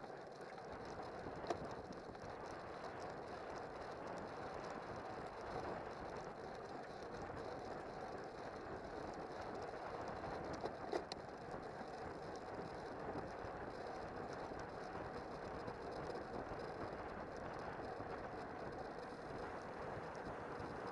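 Road bicycle ridden fast in a racing bunch: steady wind rush over the handlebar camera's microphone mixed with tyre noise on the asphalt, with a few sharp clicks from the bike.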